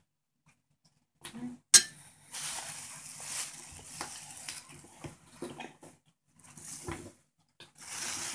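Small hard plastic capsules clicking and knocking on a tabletop, with one sharp click about a second and a half in, and scratchy handling noise between the knocks.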